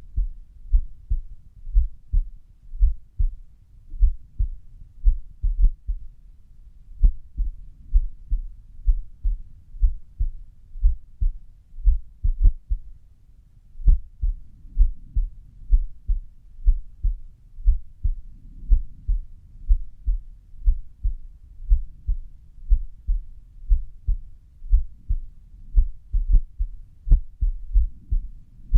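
Human heart sounds at rest: low lub-dub thumps repeating at an uneven pace, with two longer pauses between beats. The irregular rhythm is an arrhythmia (不整脈).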